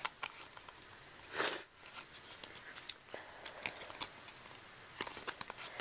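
Handling noise from a duct-tape wristlet: small scattered clicks, crinkles and rustles as fingers work cards in its credit-card pockets. A short soft hiss comes about a second and a half in.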